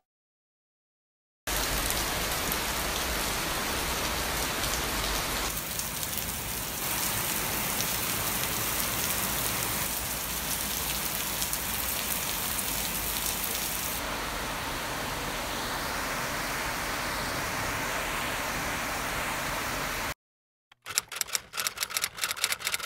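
Steady rain falling on paving, an even hiss that shifts in tone a few times where the footage cuts. Near the end, after a brief silence, a quick run of typewriter-key clicks.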